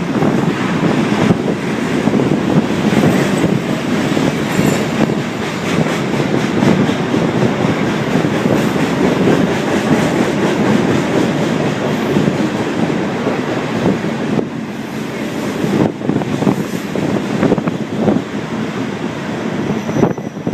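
Freight train rolling by close at hand: a loud, steady rumble of steel wheels on the rails, with occasional sharp clacks.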